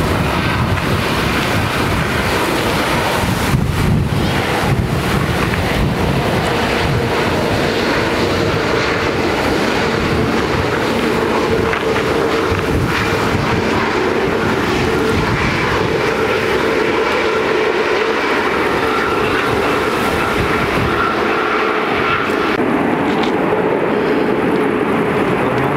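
Jet engines of an Airbus A320neo-family airliner (CFM LEAP-1A turbofans) running at low taxi power as the aircraft rolls along the runway. A steady roar with a held whine on top.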